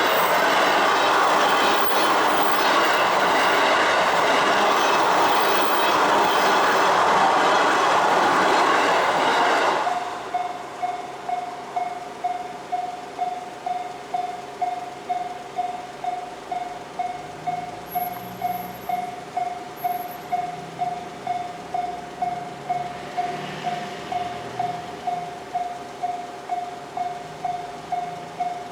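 A train running over a Japanese level crossing, its wheels rumbling on the rails for about ten seconds before the sound cuts off sharply. Under it and after it, the crossing's electronic warning bell keeps ringing in even, repeated 'kan-kan' strokes.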